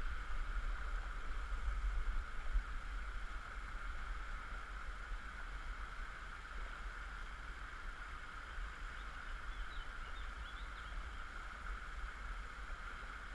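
Small woodland stream running over shallow riffles and a little cascade: a steady rush of water, with a low rumble underneath.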